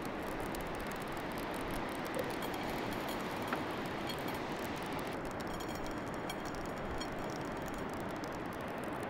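Steady wash of surf and wind across the microphone, with a couple of faint clicks.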